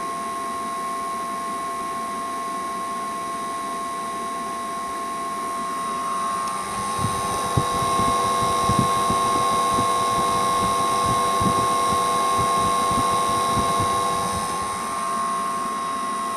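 EcoFlow Wave 2 portable air conditioner running with a steady high-pitched whine. From about six seconds in, an irregular rattling joins and the sound grows louder for several seconds. This is the abnormal noise that marked the unit as faulty.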